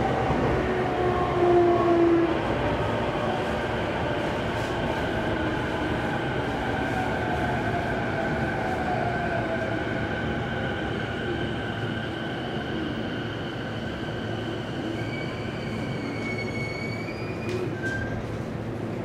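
Running sound inside a Toei 10-300 series subway car moving between stations: steady wheel-and-rail rumble with whining tones from the drive, a couple of them falling in pitch over the first few seconds. Higher whines come in near the end as the sound slowly gets quieter.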